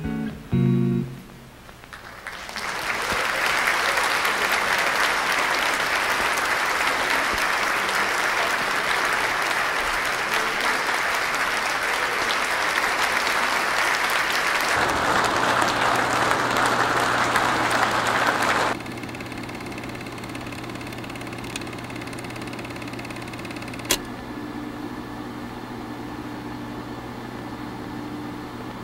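A few plucked guitar notes, then a loud, even hiss that lasts about sixteen seconds and cuts off suddenly. A low steady hum comes in partway through the hiss and carries on after it, with one sharp click.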